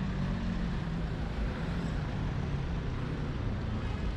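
City street traffic: steady road noise with a motor vehicle's engine humming close by, fading in the second half.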